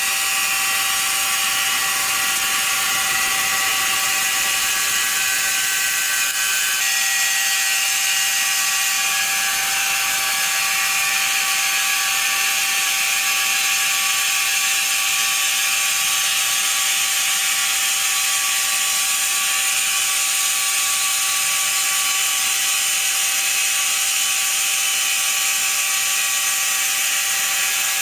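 Sawmill machinery running steadily: a loud, continuous high-pitched whine and hiss with several steady tones, whose pitch shifts slightly about seven seconds in.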